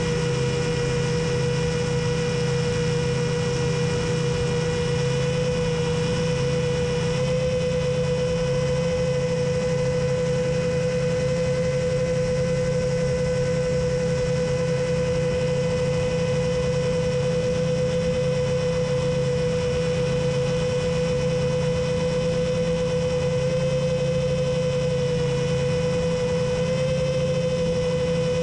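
Seven-inch long-range quadcopter's motors and three-blade propellers whining steadily at cruising throttle: one steady pitch with a row of overtones over a low rumble. The pitch steps up slightly about seven seconds in and again near the end.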